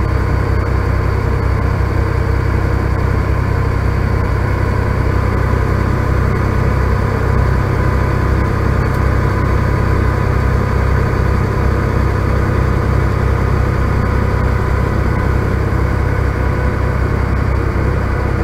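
Semi truck's diesel engine and tyres droning steadily at highway cruising speed, heard inside the cab.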